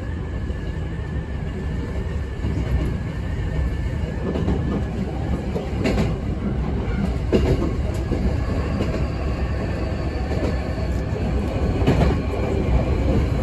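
Hankyu 8300 series electric train running at speed, heard inside the car: a steady rumble of wheels on rail, with sharp clacks over rail joints and points about six seconds in and again near the end.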